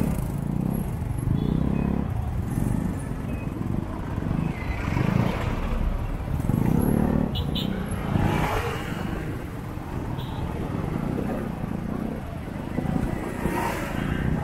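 Motorcycle engine running at low speed in slow city traffic, with road and traffic noise around it.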